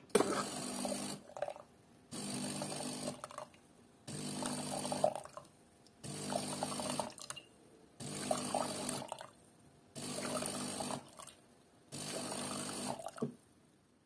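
A De'Longhi Dinamica fully automatic coffee machine rinsing its LatteCrema milk frother on the clean cycle. It spurts hot water and steam out of the milk spout into a jar with the pump humming, in seven pulses of about a second each, one every two seconds.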